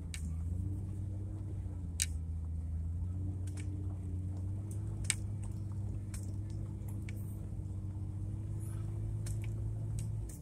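Vehicle engine and drivetrain running steadily, heard inside the cabin while driving on snow, its pitch rising slightly early on. Scattered sharp clicks and ticks sound over the hum.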